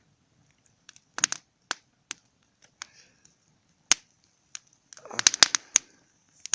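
Freshly lit wood campfire crackling, with irregular sharp pops and a quick run of them about five seconds in.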